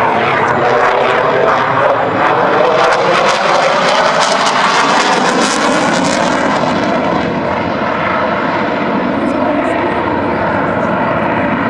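Saab JAS 39 Gripen's single Volvo RM12 turbofan at high power through a display manoeuvre: a loud jet roar with a ragged crackle and pitch that slides as the aircraft turns. It eases off a little after about seven seconds.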